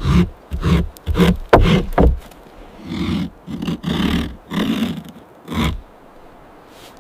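Tiger growling and roaring: a quick string of short loud bursts over the first two seconds, then several longer growls.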